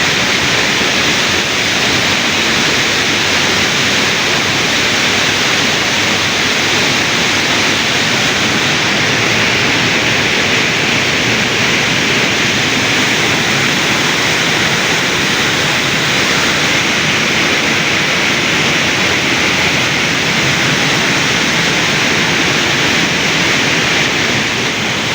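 Waterfall, a steady loud rush of falling water with no change.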